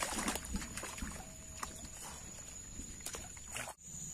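A hooked lembat catfish thrashing at the surface of a shallow muddy pool, splashing hardest in the first half second, then in smaller splashes and rustles. A steady high insect buzz runs underneath.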